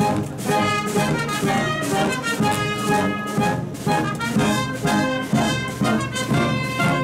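Marching wind band playing while walking: clarinets and saxophones over brass and a sousaphone bass line, in a steady rhythmic tune.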